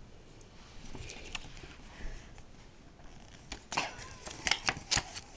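A glossy paper pamphlet being handled and folded shut: soft faint rustling, then a quick run of sharp paper rustles and light taps in the last couple of seconds.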